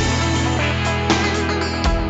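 Instrumental background music: guitar over a steady bass line, with regular drum hits.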